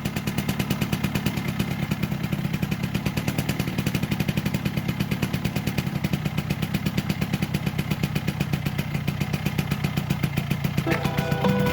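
1980 Vespa P200's single-cylinder two-stroke engine idling steadily with a rapid, even beat. Music comes in near the end.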